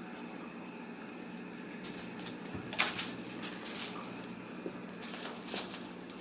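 Kitten batting and rolling with a small shiny toy ball, which gives a scatter of jingling, rattling clicks starting about two seconds in, loudest near three seconds, with more around five seconds, over a faint steady hum.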